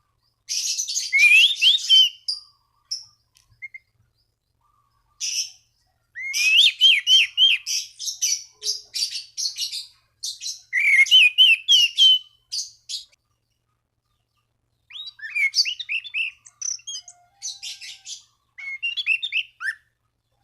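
Anis cendana thrush singing energetically in six bursts of rapid, varied song: quick rising-and-falling whistled notes run together with scratchy, chattering notes, with short pauses between phrases.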